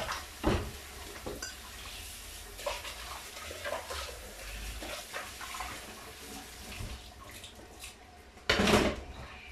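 A cooking pot being rinsed in a kitchen sink under a running tap: water running and splashing in the pot, with scattered clinks of the pot against the metal sink. A short, louder noise comes about a second before the end.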